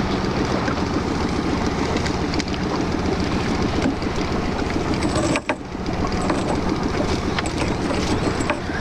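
Honda four-stroke outboard motor running steadily, a dense, fast-pulsing hum, with a brief dip in level about halfway through.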